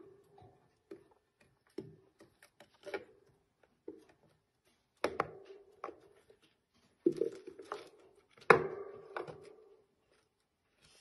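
Hamster hauling a wooden chew stick into its plastic cage house: irregular knocks and clatters as the stick strikes the plastic and the wire bars, with a few louder thumps past the middle.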